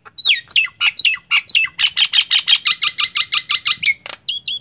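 Caged common myna singing loudly. It gives a few downward-sliding whistles, then a fast run of harsh repeated notes at about six a second, and ends with short rising whistles.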